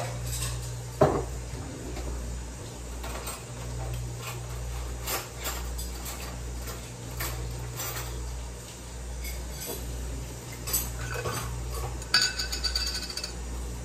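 Kitchen clatter of spice containers and metal measuring spoons being handled: scattered knocks and clicks, with a sharp knock about a second in and a burst of clinking metal near the end, over a steady low hum.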